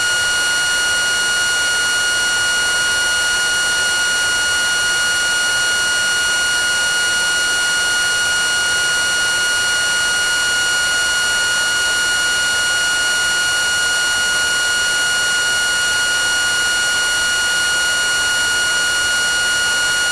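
VHS tape sound effect: a steady high-pitched tone with a stack of overtones over constant hiss, unchanging throughout.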